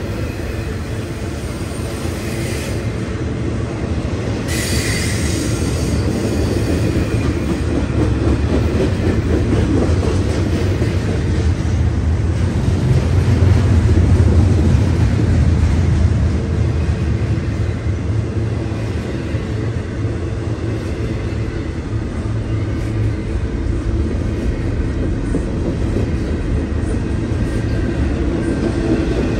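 Canadian National double-stack intermodal freight train's loaded well cars rolling past, a steady low rumble of steel wheels on rail. About five seconds in, a wheel gives a brief high squeal.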